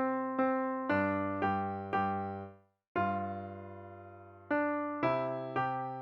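Piano playing a simple children's-song accompaniment in struck chords over bass notes, about two chords a second. It stops briefly about two and a half seconds in, then a long chord rings and dies away before the short chords resume.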